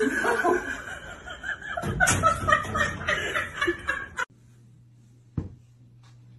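People laughing and snickering, cutting off abruptly about four seconds in. After it, a low steady hum with a single click.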